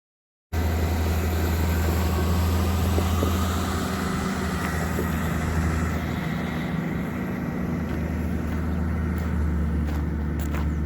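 JCB 4CX backhoe loader's diesel engine running steadily, cutting in abruptly about half a second in.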